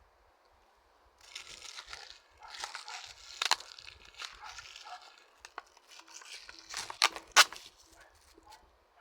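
Product packaging being handled and opened: crinkling and tearing in several stretches, with a few sharp snaps, the loudest about seven seconds in.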